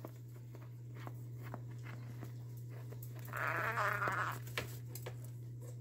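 A conure gives a raspy, gurgling grumble lasting about a second, a little past the middle, with faint scattered clicks around it. A steady low hum runs underneath.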